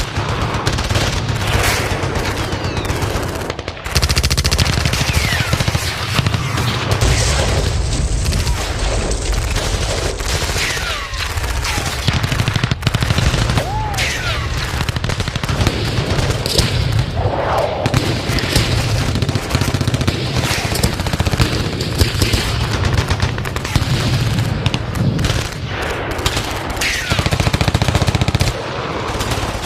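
Battle sound effect: dense, continuous gunfire, rapid machine-gun bursts mixed with other shots, going on without a break.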